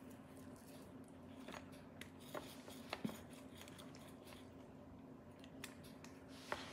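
Rotary pizza cutter wheel rolling through a baked pizza crust on a wooden cutting board: faint cutting sounds with a few sharp, scattered clicks as the wheel presses down on the board.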